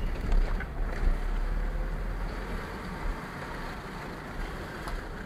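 Car driving across a level crossing, heard from inside the cabin: a steady low road rumble, with two thumps in the first second or so as the tyres go over the rails.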